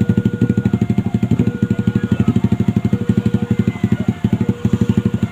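Railway level-crossing warning signal sounding: a rapid, even pulsing of about ten beats a second, with a repeating pattern of steady tones over it.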